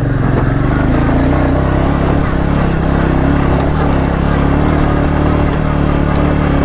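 Royal Enfield Meteor 350's single-cylinder four-stroke engine pulling under heavy throttle in first gear up a steep dirt climb, running at steady revs under load.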